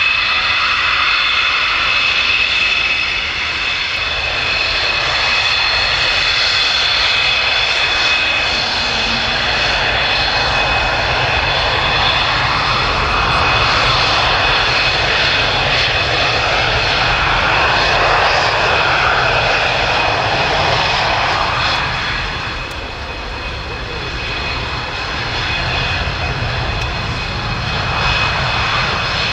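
Dassault Mirage 2000's single SNECMA M53 turbofan running at taxi power: a steady high turbine whine over a broad jet rumble. It eases off for a couple of seconds about three-quarters of the way through.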